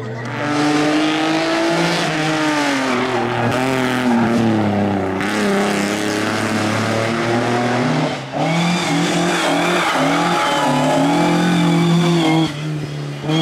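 Historic rally car engines revving hard through tarmac bends, pitch climbing and dropping again and again with gear changes and lifts. The sound changes abruptly about eight seconds in and again near the end as one car's pass gives way to another's.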